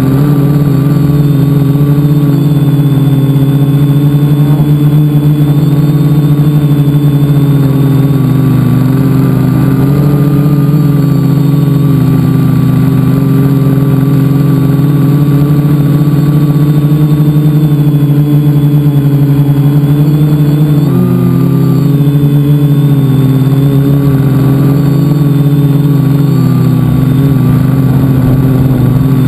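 Multicopter's electric motors and propellers humming loudly and steadily, heard from a camera mounted on the craft. The pitch wavers slightly with throttle and briefly rises about 21 seconds in.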